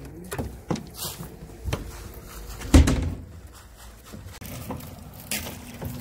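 Irregular knocks and thumps, a handful spread through the few seconds, the loudest a heavy thump just under three seconds in.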